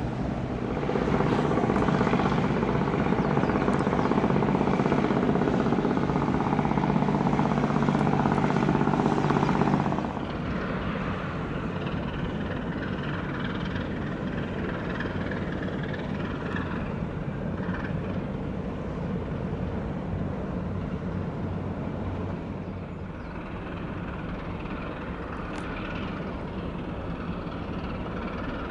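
A steady engine drone with a low hum, loud for the first ten seconds or so, then dropping abruptly to a quieter steady rumble about a third of the way in.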